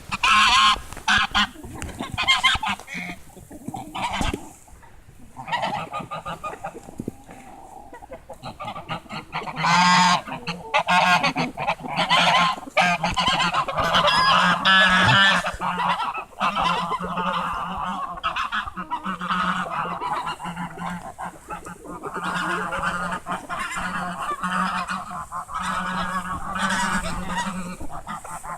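A flock of geese honking, many calls overlapping at once, rising and falling in intensity with louder bursts of honking.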